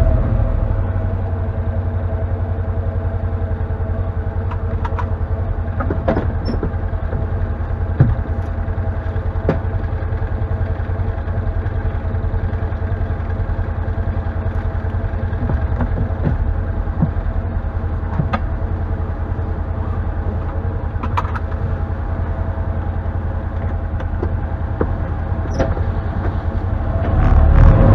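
Can-Am Defender HD10 side-by-side's Rotax V-twin running at low, steady revs as it crawls over rough trail, heard from inside the cab, with scattered sharp knocks and rattles. The engine grows louder near the end.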